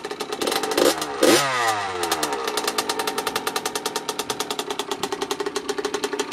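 1984 Yamaha YZ80's two-stroke single-cylinder engine idling with a steady rapid beat. It is blipped twice about a second in, and the revs fall back to idle.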